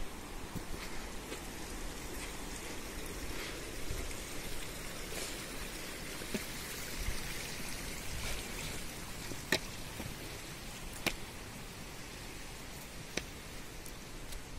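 Footsteps walking down a rocky stone-step trail, with a few sharp clicks of boots on stone over a steady rushing background noise.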